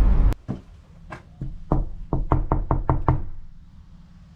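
Knocking on a house door to check whether anyone is home: a few spaced knocks, then a quick run of about six. Just before them, the steady rumble of a vehicle cuts off suddenly.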